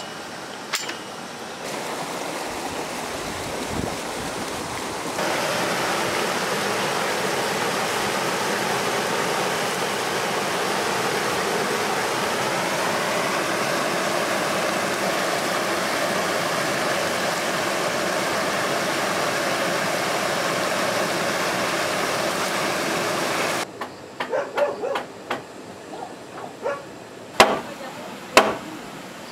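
Water rushing steadily in a swollen stream after heavy rain, getting louder about five seconds in. It gives way abruptly near the end to a few sharp knocks, like wood being struck.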